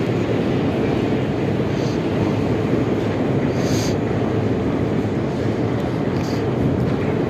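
Minsk metro train running, a steady loud rumble of wheels and running gear heard from inside the car, with three brief high squeaks.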